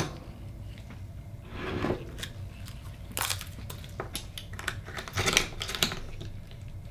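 Gloved hands handling an Akoya oyster and working a knife into its shell: crackly scraping and crunching of shell, in clusters about three seconds in and again around five to six seconds. A sharp knock at the very start.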